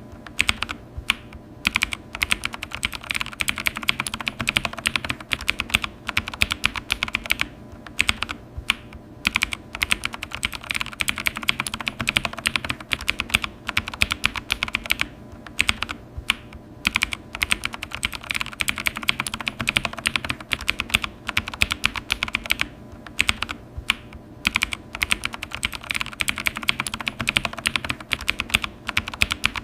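Computer keyboard being typed on continuously: a steady stream of key clicks, with a few brief pauses.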